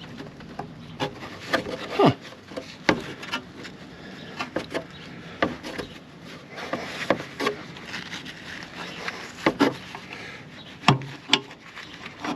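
Rubber exhaust hanger ring being worked onto its metal hanger pins: irregular knocks and clicks with rubbing and a few short squeaks that slide down in pitch as the rubber is stretched and pushed into place.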